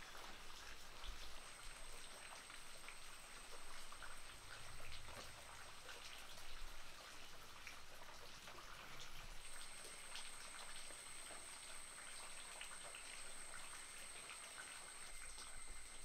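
Herbal coffee boiling in a clay pot over a wood fire: dense, irregular bubbling and popping. A thin, steady high tone runs in the background and grows stronger about halfway through.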